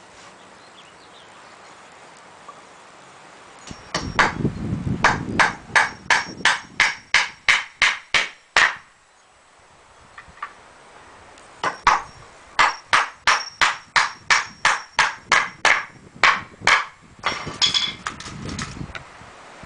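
Hammer driving nails into wooden boards: two runs of quick, evenly spaced blows, about three a second, each lasting about five seconds, with a pause between and a short clatter near the end.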